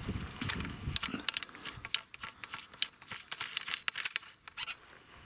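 Handling noise: many short, irregular light clicks and ticks as a metal shotgun choke tube is turned between the fingers, after a low rumble in the first second.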